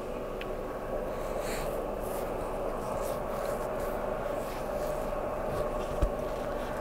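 Steady electric hum with a few fixed tones from a classroom's motorized projection screen lowering and the ceiling projector powering up. Light rustling of a clip-on microphone against a shirt and a short low thump come near the end.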